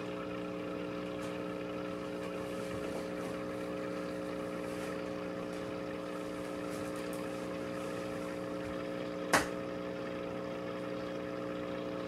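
Steady hum of an aquarium air pump running a sponge filter, with one sharp click about nine seconds in.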